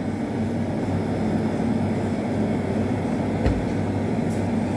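Steady low hum of air conditioning, with a few faint light clicks of a plastic spoon in the cup and one soft bump about three and a half seconds in.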